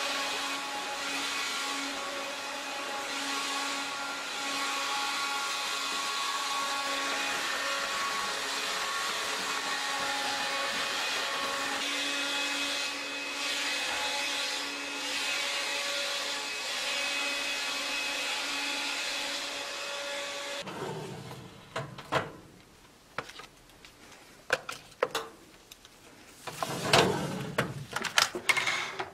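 Stick vacuum cleaner running steadily with a motor whine as it sweeps the floor. It cuts off about two-thirds of the way through, and scattered clicks and plastic handling noises follow as the floor head's brush roll is taken apart.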